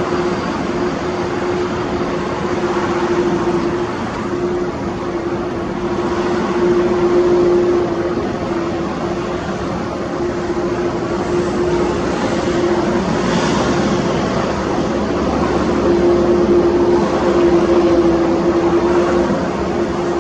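Jet engines of an Airbus A330-300 (General Electric CF6 turbofans) running steadily, a continuous drone over a broad roar that swells slightly a few times.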